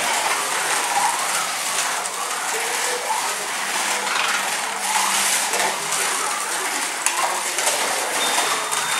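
Slot cars running on a Ninco track. Their small electric motors whine, rising and falling as the drivers work the throttles through the bends, over a continuous rattly hiss of the cars on the plastic track.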